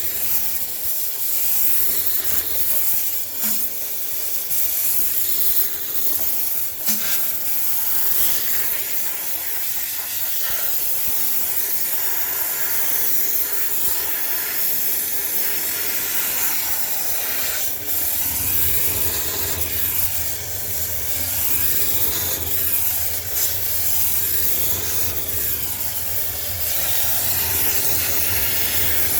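High-pressure cleaner jet hissing steadily as it sprays the inside of a sneaker washing machine to sterilise it, with a few brief knocks. A low hum joins about two thirds of the way in.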